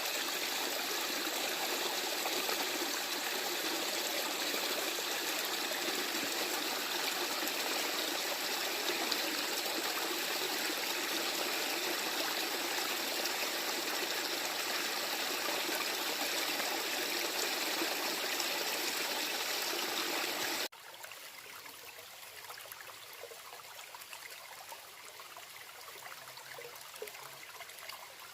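Running water of a woodland stream, a steady rushing murmur. About twenty seconds in it cuts suddenly to a quieter, thinner trickle.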